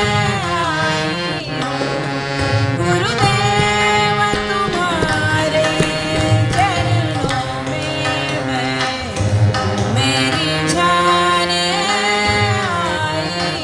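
A woman singing a devotional bhajan with tabla accompaniment: a gliding sung melody over sustained backing tones, with the tabla's low drum strokes throughout.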